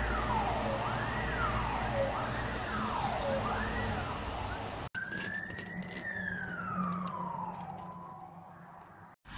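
Emergency vehicle siren wailing, its pitch sweeping up and down about once a second. About halfway through it cuts to another siren tone that rises once, then glides slowly down and fades, with some clicking over it.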